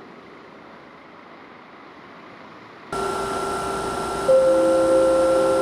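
DB Class 426 electric multiple unit: faint steady noise, then about three seconds in a sudden switch to louder train sound full of steady whining tones from the electrics, with a stronger held tone joining about a second later.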